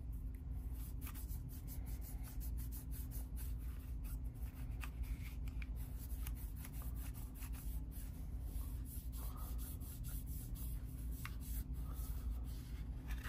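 Cleaning pad wiped over a Glock 17 pistol's slide and frame: faint, soft rubbing and scrubbing with a few small clicks, over a steady low hum.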